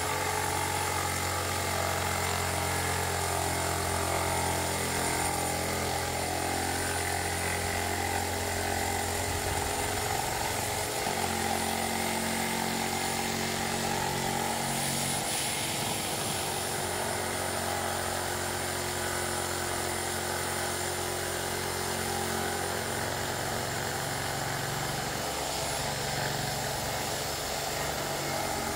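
Corded electric reciprocating saw running continuously with a steady motor drone, its pitch shifting a few times.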